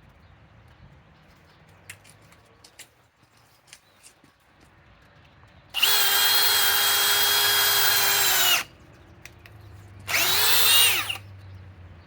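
RIDGID high-torque cordless hammer drill with a 3/8-inch bit running hard at a steady speed for about three seconds, then a second shorter burst that spins up and winds back down. Faint clicks and handling noises come before the first run.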